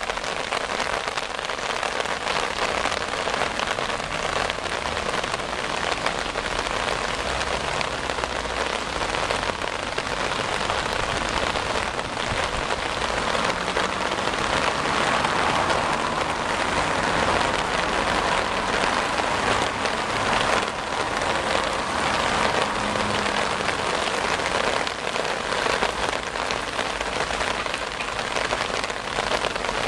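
Heavy rain falling steadily, a dense, even sound of many drops.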